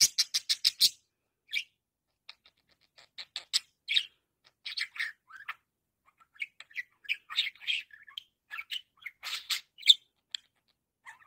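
Budgerigar chirping and chattering: a quick run of sharp chirps in the first second, then scattered, irregular twittering chirps, with the loudest chirp near the end.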